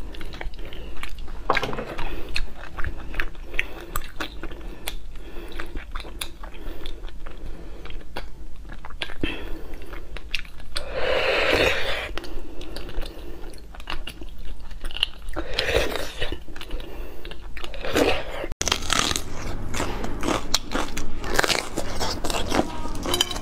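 Close-miked mouth sounds of eating spicy roasted beef bone marrow: wet chewing, lip smacks and a slurp as marrow is sucked from the bone. After a cut near the end comes crisp crunching of bites into a raw green pepper.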